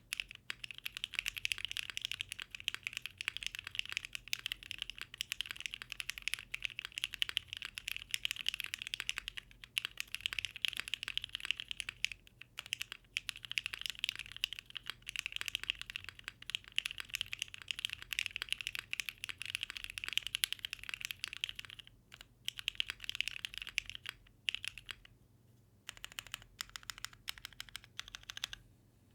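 Fast typing on a Bakeneko mechanical keyboard with lubed, broken-in NovelKeys Cream linear switches in an aluminium plate, with ABS and PBT keycaps: a continuous rapid clatter of keystrokes with a few brief pauses, the longest about 25 seconds in.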